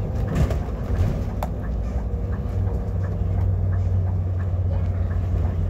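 Bus engine and drivetrain heard inside the cabin while driving: a steady low drone that grows stronger about halfway through, with a few small rattles.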